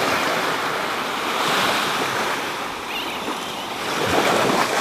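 Small waves breaking and washing up the beach, a steady rush that swells about a second and a half in and again near the end, with some wind on the microphone.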